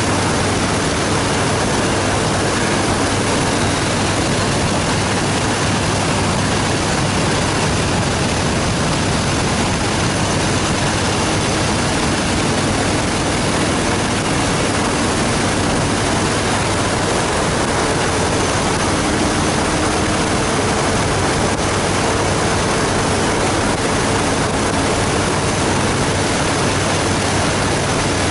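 Steady wind rush on the microphone of a 2014 Harley-Davidson Fat Boy Lo cruising at constant highway speed, with the bike's V-twin engine running evenly as a low drone underneath.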